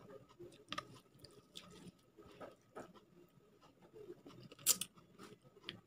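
Close-up eating by hand: fingers mixing rice and chicken curry on a steel plate, then chewing with small wet mouth clicks. The clicks come irregularly, and one sharp click about three-quarters of the way through is the loudest.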